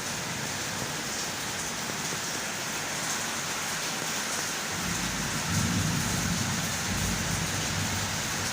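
Steady rain falling, an even hiss throughout, with a deep low rumble swelling in about halfway through and lasting a few seconds.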